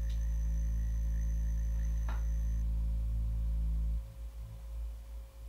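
A steady low hum with a faint click about two seconds in; the hum cuts off about four seconds in, leaving only faint, uneven low rumble.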